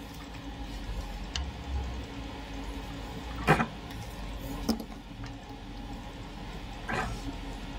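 Handling noise as a wire is wrapped around the pins of a small relay on a tabletop: three short knocks and scrapes, the loudest about halfway through, over a steady low hum.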